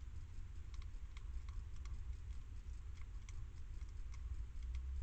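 Hedgehog crunching dry food from a metal dish: irregular sharp crunching clicks, several a second, over a low steady hum.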